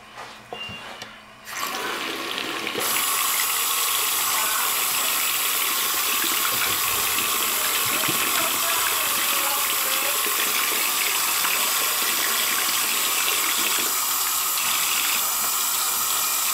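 Bathroom sink faucet turned on about a second and a half in, then tap water running steadily into the basin. Near the end the stream splashes over hands held under it, rinsing an SD card.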